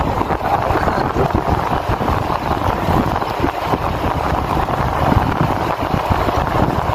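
Steady wind rushing and buffeting over the microphone of a camera riding on a moving bicycle, a loud, even roar of noise.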